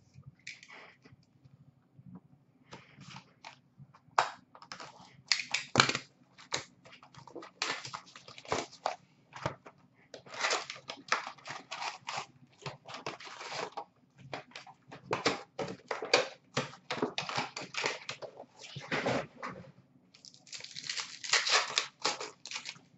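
Cardboard hobby box being opened and plastic-wrapped trading card packs crinkling and tearing in the hands, a string of irregular rustles and crackles that gets busier in the second half.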